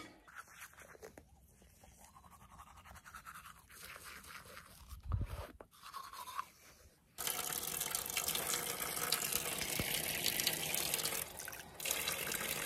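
Teeth being brushed with a toothbrush: fast, scratchy scrubbing that starts about seven seconds in and keeps going, with a brief break near the end. Before it there are only faint scattered noises and one low thump.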